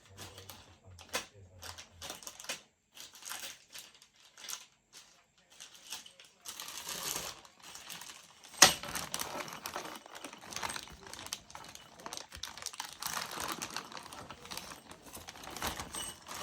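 Irregular small clicks and rattles of flat-pack furniture parts and screws being handled, with stretches of rustling, and one sharp knock about eight and a half seconds in.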